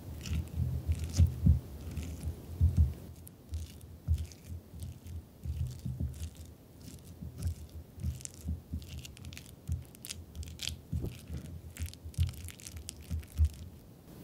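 A spatula mashing microwaved kabocha squash in a glass bowl: irregular soft, squishy thumps with light clicks of the spatula against the glass.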